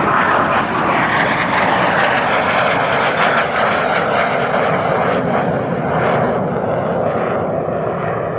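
BAC Strikemaster jet, its Rolls-Royce Viper turbojet giving a loud, steady jet rush as it flies past and pulls up into a banking climb. The sound loses some of its high hiss and eases slightly over the last few seconds as the jet climbs away.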